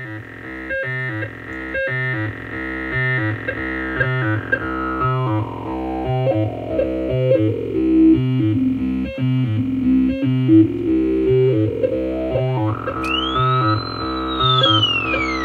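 Maplin 5600S analogue synthesiser playing a repeating sequenced pattern through its control-voltage input, over a drum machine beat. A resonant tone sweeps down through the pattern and back up as its knobs are turned, and near the end a high swoop rises and falls. The level builds over the first couple of seconds.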